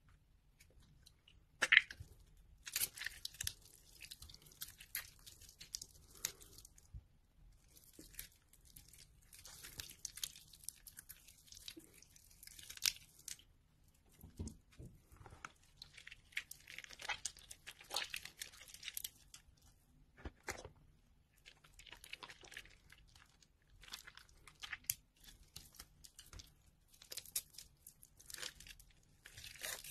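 Hands squeezing and crumbling bars of water-soaked soap: soft, wet crunching and crackling in irregular spells as the softened soap breaks apart between the fingers, with one sharp crack about two seconds in.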